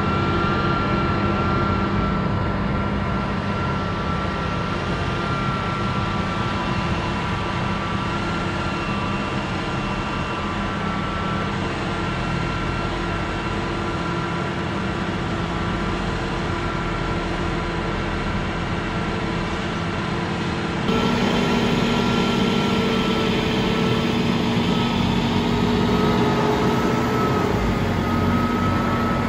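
Machinery running steadily, a low hum with a constant high whine; the sound shifts abruptly and gets slightly louder about two-thirds of the way through.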